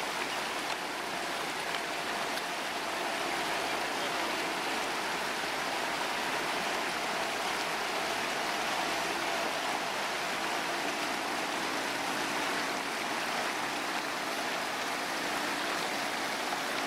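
Rocky mountain stream rushing over stones and small cascades: a steady wash of flowing water.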